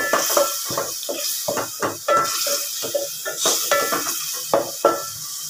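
A spoon stirring and scraping in a metal cooking pot, knocking against it over and over with short metallic rings, over the steady hiss of ginger-garlic paste frying in oil.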